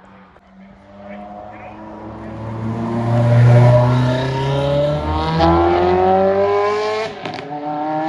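A car engine accelerating: it grows louder over the first few seconds, then climbs steadily in pitch. About seven seconds in it breaks and drops lower at a gear change, then starts climbing again.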